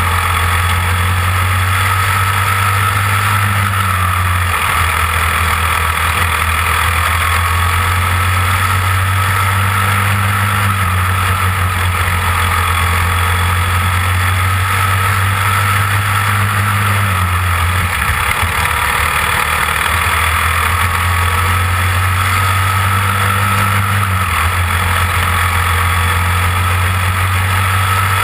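Cage kart's engine running hard at racing speed, heard from onboard the kart. The loud, steady note shifts in pitch a few times as it laps the oval.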